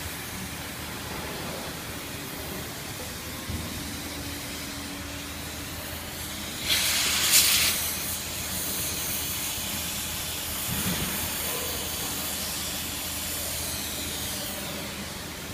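Gas torch flame hissing steadily as it heats a steel flange on a gearbox shaft, with a louder rush of hiss lasting about a second near the middle.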